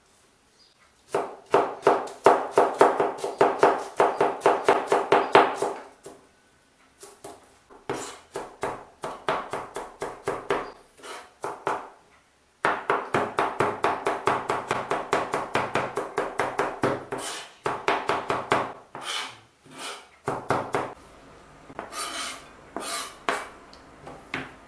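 Kitchen knife rapidly chopping onion on a cutting board: fast runs of several knife strokes a second, broken by short pauses. Near the end the strokes thin out to a few scattered knocks.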